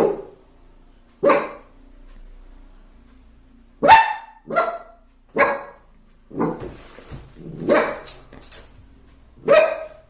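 A puppy barking in a string of about eight short, separate barks at uneven intervals, barking at its own reflection in a mirror.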